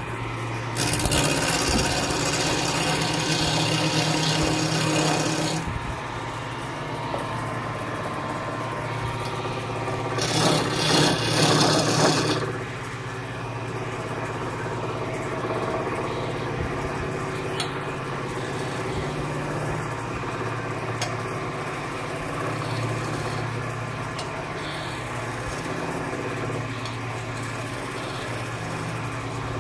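Wood lathe running steadily while a hand-held chisel cuts the spinning wooden spindle, a scraping hiss over the hum of the lathe. The cut grows louder and brighter from about one to five seconds in and again around ten to twelve seconds in.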